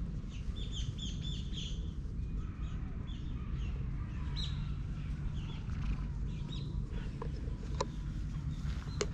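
Small birds chirping: a quick run of short, high chirps in the first two seconds, then scattered calls, over a steady low rumble. A couple of sharp clicks near the end.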